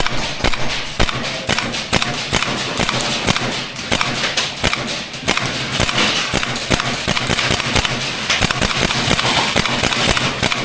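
Airsoft gunfire: many quick, irregular shots laid down as suppressing fire.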